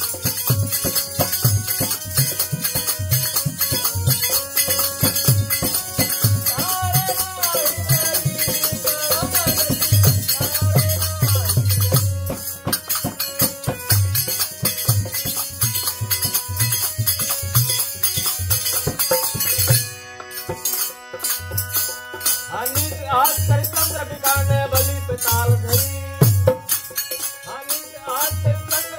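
Hindu devotional kirtan played live on dholak and harmonium, with fast steady hand percussion and phrases of sung melody. The drum and percussion thin out briefly about two-thirds of the way through, then carry on.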